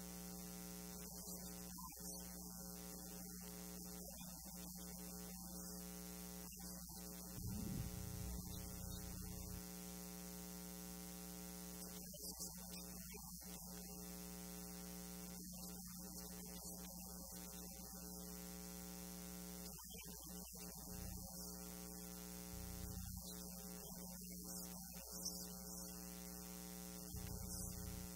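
Steady electrical mains hum, a low buzz with many evenly spaced overtones, broken by a few brief low thumps, the longest about eight seconds in.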